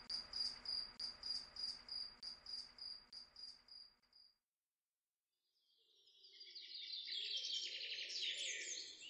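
Faint cricket chirping in a steady rhythm that fades out about four seconds in; after a short silence, birds start chirping near the end.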